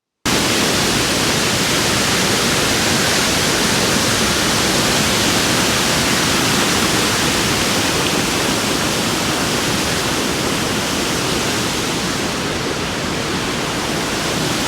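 Water pouring over a small canal waterfall: a loud, steady rush.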